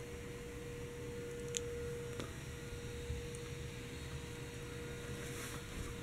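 Hunter Pavilion ceiling fan's motor running with a steady hum, over a low rumble, with a couple of faint ticks.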